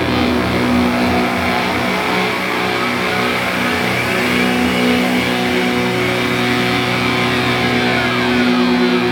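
Live doom metal band playing loudly: heavily distorted electric guitars and bass hold long, low droning notes, with higher tones sliding up and down above them.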